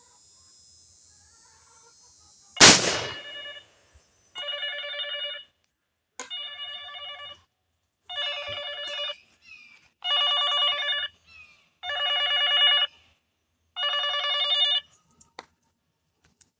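A single shot from a 20-gauge muzzleloading smooth rifle loaded with black powder and birdshot, loud and sudden about two and a half seconds in. It is followed by a steady ringing tone repeated six times, about two seconds apart.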